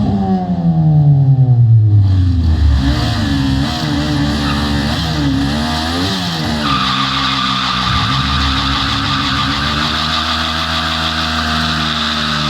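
A motor vehicle's engine coming down from high revs to idle over the first couple of seconds, then given a few short throttle blips, then idling steadily. A steady hiss joins about halfway through.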